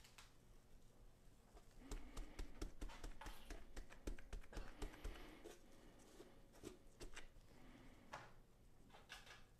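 Faint handling sounds of a gloved hand patting seasoning into a raw ground-meat patty on a plastic cutting board: a run of soft taps and small thumps over a few seconds, then a few brief shakes of a seasoning bottle near the end.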